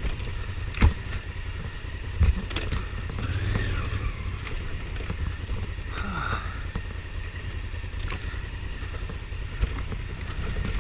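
Honda Africa Twin adventure motorcycle's engine running under way on a rough forest trail, with a steady low rumble. Two sharp knocks come about one and two seconds in.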